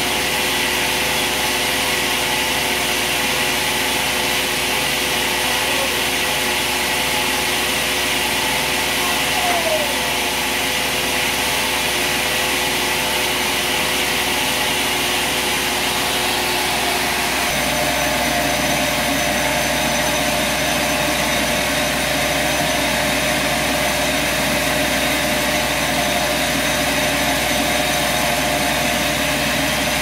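Band sawmill machinery running steadily without cutting: a loud, even machine hum with several steady tones and a hiss. About halfway through the sound changes, growing fuller and lower, and a short falling squeak comes about ten seconds in.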